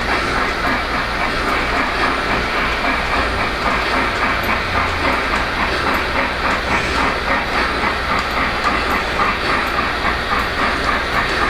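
O-gauge Lionel model trains running steadily on Fastrack: a continuous whir of wheels and motors with rapid clicking over the rail joints.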